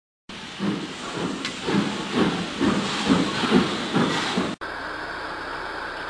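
Model steam tank locomotive chuffing with steam hiss, about two chuffs a second. About four and a half seconds in it cuts abruptly to a steady hiss.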